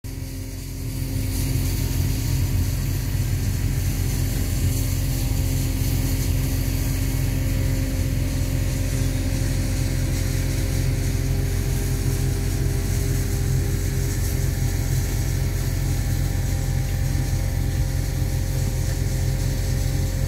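Steady low mechanical drone with a constant hum and a hiss above it, rising over the first second and then holding level.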